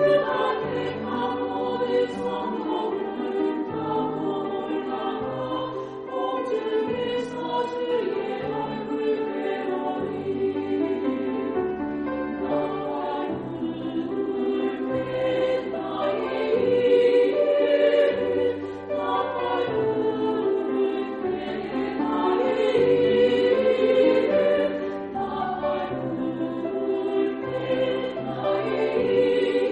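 Women's choir singing a slow sacred choral song in several parts, with sustained chords and low accompaniment notes beneath.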